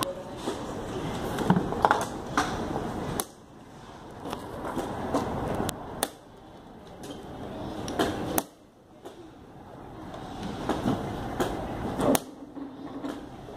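Sharp clicks and knocks of plastic chess pieces set down on a roll-up board and of a digital chess clock's button being pressed during a blitz game, a dozen or so irregular strokes over steady background noise.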